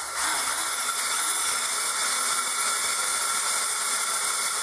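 Electric drill running steadily as a twist bit bores into cast iron, drilling a stop hole at the end of a crack in a skillet to keep the crack from spreading.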